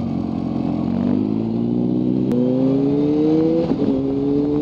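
Kawasaki Z H2's supercharged inline-four engine pulling away and accelerating. Its pitch climbs steadily, drops briefly for an upshift about three and a half seconds in, then climbs again.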